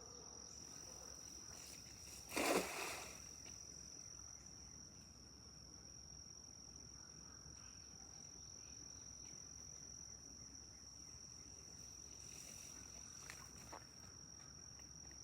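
Insects, crickets or similar, trilling in one steady high-pitched drone. About two and a half seconds in a short, loud rush of noise breaks in, and a fainter one comes near the end.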